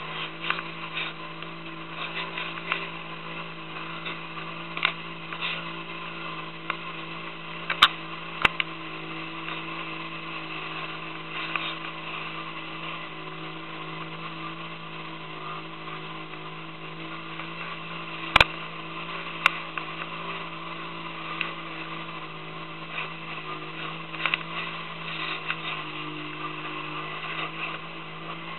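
Boat engine running steadily with a constant drone while under way, water rushing and splashing along the hull, and a few sharp knocks.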